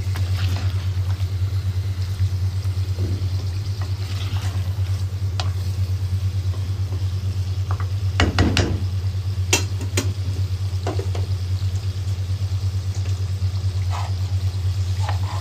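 Chicken pieces sizzling lightly in an earthenware clay pot as they are stirred with a wooden spoon, over a steady low hum. A few sharp knocks of the spoon against the pot come around the middle.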